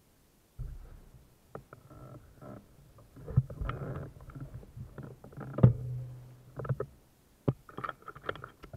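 Motorcycle engine running at low revs on a rough downhill trail, coming and going, with scattered knocks and clicks from the bike jolting over the ground.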